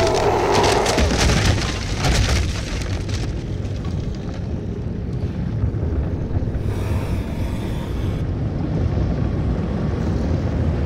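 Wood splintering and debris crashing down for the first three seconds or so, then a loud, steady low rumble.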